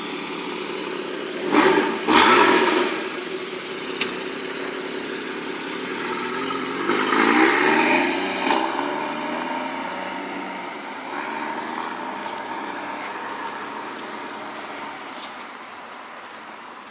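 Porsche Cayman S (981) 3.4-litre flat-six idling, blipped sharply twice about two seconds in, then revved again for a couple of seconds around seven seconds in before settling back to idle. The sound fades steadily over the last few seconds.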